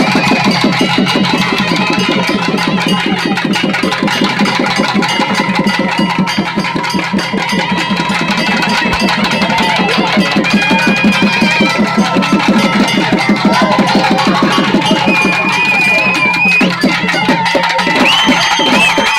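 Drums beaten in a fast, dense, continuous rhythm, with a high wavering melody line held over them at times.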